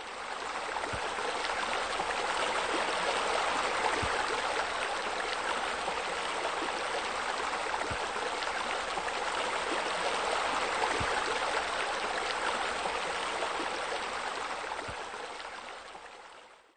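Water spilling from a raised wall into a pool makes a steady splashing rush. It fades in over the first second or two and fades out near the end.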